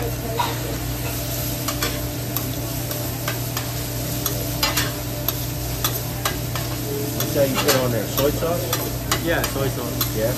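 Fried rice sizzling on a hibachi flat-top griddle while metal spatulas scrape and clack against the steel, with sharp clicks about once a second and a busier run of them near the end.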